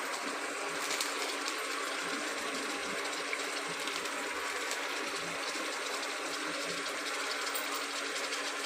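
Vegetables and spice powder frying in butter and oil in a pot, a steady crackling sizzle.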